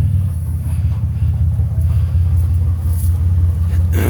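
Vehicle engine and road rumble, a steady low drone heard from inside the vehicle.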